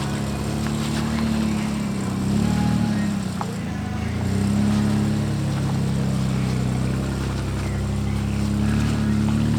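Jeep Liberty engine running under load while crawling off-road. Its pitch rises briefly about two seconds in and dips, then holds fairly steady.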